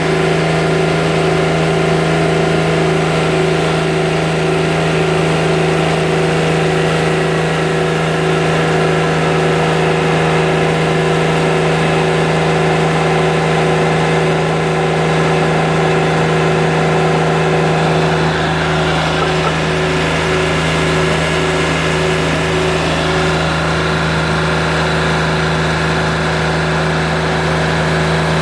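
Portable bandsaw mill's engine running steadily under load while its band blade saws through an English walnut log. The higher tones shift slightly about two-thirds of the way through.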